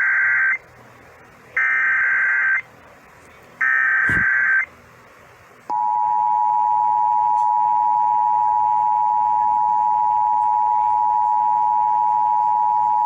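Emergency Alert System SAME header: three one-second bursts of rapidly warbling data tones, about a second apart, with a brief knock during the third. About six seconds in, the EAS two-tone attention signal starts, a steady dual tone that holds through the end. Together they signal the activation of a tornado warning alert on the radio broadcast.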